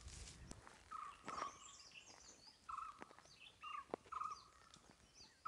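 Faint birdsong: short whistled notes repeated about once a second, with scattered higher chirps from other birds and a few faint clicks.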